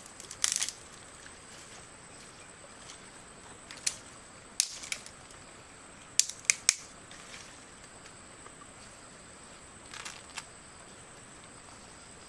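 Scattered short, sharp clicks and snaps, about nine in all, several in a quick cluster around the middle, over a steady faint high-pitched tone.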